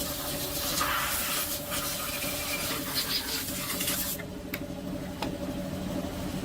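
Hissing spray in long bursts, one stopping about four seconds in and another starting near the end, over a steady machine hum.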